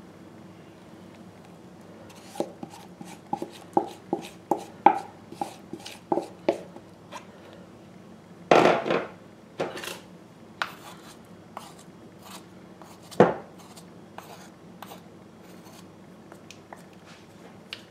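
A spatula clicking and scraping against a glass mixing bowl while stirring yeast water into flour, with a metal spoon scraping against the bowl. Irregular light taps throughout, a few louder scrapes, and one sharp knock about thirteen seconds in.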